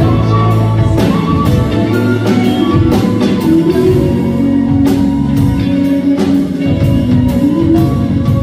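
Live band playing an instrumental passage of a pop song: drum kit keeping a steady beat under electric guitar, bass and keyboard.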